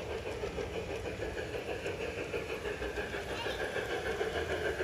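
Garden-scale model train running along its track, a steady whir and rumble.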